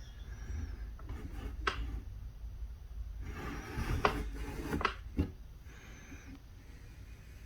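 Handling noise: rubbing and scraping with a low rumble, broken by a few sharp clicks or knocks, the loudest about four seconds in.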